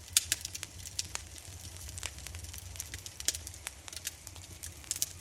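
Intensely burning fire: a steady low rumble with frequent, irregular sharp crackles and pops.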